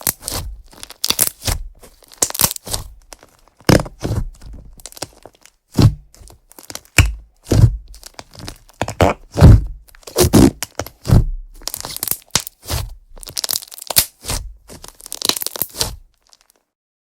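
Slime being squeezed and pressed by hand, giving irregular sharp crackling pops and clicks that stop shortly before the end.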